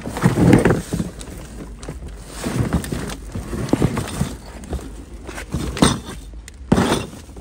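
Footsteps and handling noise from a handheld phone carried among garden pots: irregular rustling and knocking, loudest in the first second, with two sharper knocks near the end.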